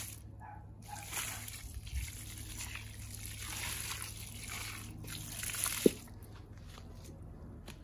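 Water trickling and splashing onto garden soil, steady for several seconds, followed by a single sharp click about six seconds in.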